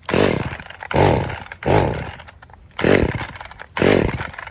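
Chainsaw being pull-started again and again: five quick yanks of the recoil starter, about one a second, each a brief whirr that falls in pitch and dies away. The engine does not catch: the saw won't start.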